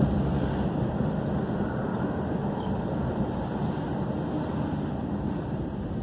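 Steady low rumble of a car's engine and tyres on the road, heard from inside the cabin while driving slowly, easing a little near the end.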